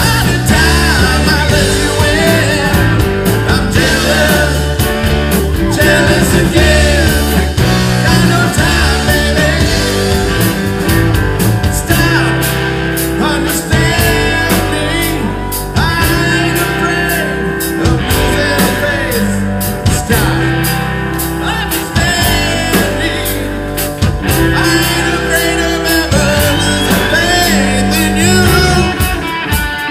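Live rock band playing a song with a lead singer: electric guitars, bass, drum kit and keyboard, loud and continuous.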